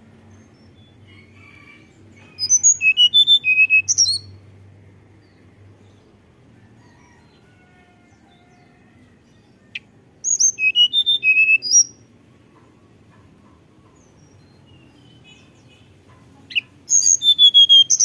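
Hill blue flycatcher singing its flute-like song: three short phrases of quick, high whistled notes that fall in pitch, each about a second and a half long and several seconds apart.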